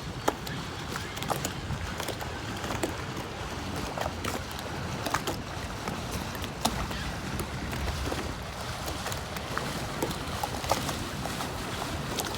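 Lake water lapping, with wind on the microphone and many scattered small knocks and clicks.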